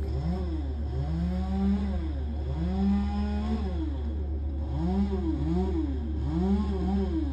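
A small engine revving up and dropping back again and again, most likely a chainsaw cutting limbs, over the steady drone of a running Bandit Intimidator brush chipper.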